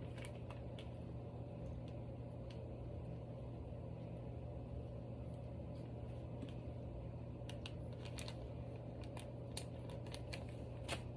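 Hands kneading and folding slime, with small scattered clicks and pops that come more often in the last few seconds, over a steady low room hum.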